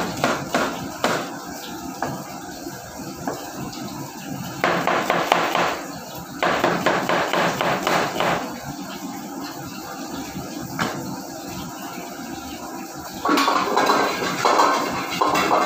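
Large kitchen knife chopping on a cutting board: separate knocks at first, then two runs of fast, dense chopping. Near the end a wok on the burner is worked with a metal utensil, and a louder clatter of metal on metal sets in.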